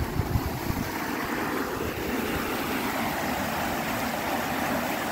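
Steady rushing of a steaming thermal stream running over rocks, with a few low wind thumps on the microphone at the start.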